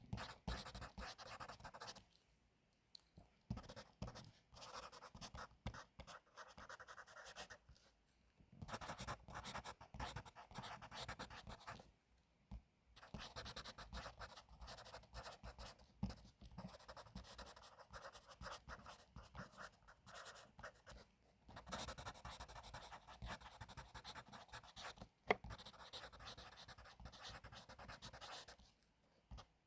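Pencil writing on paper, scratching in stretches of a few seconds with short pauses between them, and one sharp tick late on.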